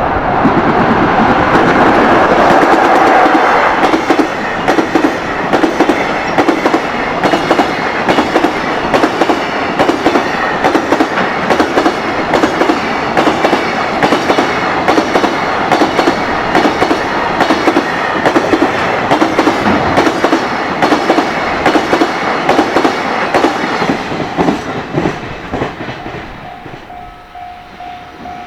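High-speed container freight train passing: the locomotive goes by loudly in the first few seconds, then the wagons' wheels clatter over the rail joints in a steady, even rhythm that fades away near the end. A level-crossing warning bell rings as a steady tone at the start and again near the end.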